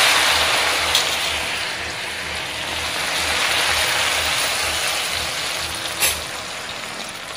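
Batter-coated shredded cabbage deep-frying in hot oil: a loud, steady sizzle that slowly eases off, with a sharp click about a second in and another near six seconds.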